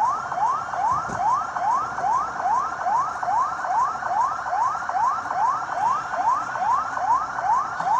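Siren yelping: a fast wail that rises and drops back about two and a half times a second, without a break.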